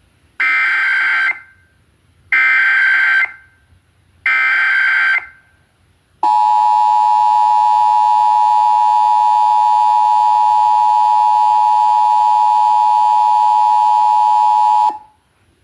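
Emergency Alert System tones for a Required Monthly Test, as aired on radio. First come three SAME header data bursts, each about a second long and about a second apart, which encode the alert's event, area and times. Then the two-tone attention signal (853 and 960 Hz sounded together) holds steady for about nine seconds before cutting off, announcing that the alert message follows.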